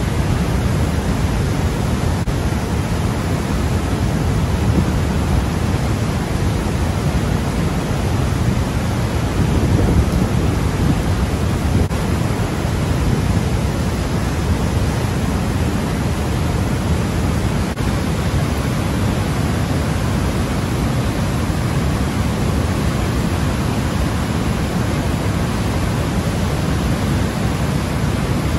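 Water pouring through a river dam's open gates and churning in the tailwater: a deep, steady rush that neither starts nor stops.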